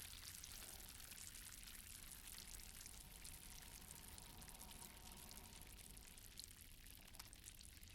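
Near silence with faint lake-water ambience: a soft hiss of gently moving water with a few tiny drips.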